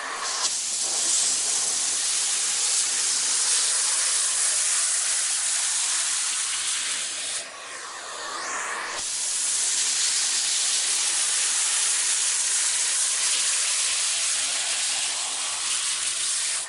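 Vacuum cleaner running, a loud steady rush of airflow hiss over the motor. About halfway through, the rush drops and changes tone for a second or so before coming back to full strength, as the suction or nozzle contact shifts.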